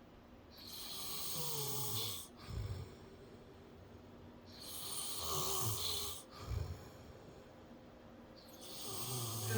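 A man snoring in his sleep: three long snores on the in-breath, about four seconds apart, each followed by a short low puff as he breathes out. The person filming suspects the snoring may come from a blocked nose or swollen polyps in a nostril.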